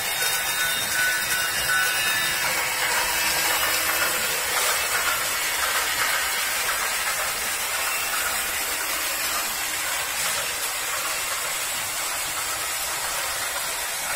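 Battery-powered toy trains running on plastic track: a steady, hissing whir of their small motors and wheels.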